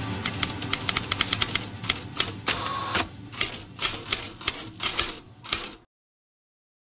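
Typewriter keys clacking in an irregular run of keystrokes that stops suddenly about six seconds in, with music fading out underneath during the first half.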